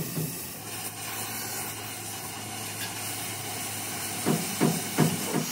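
Oxy-fuel cutting torch hissing steadily as its flame cuts through a steel plate, over a constant low hum. A few short low thumps close together near the end.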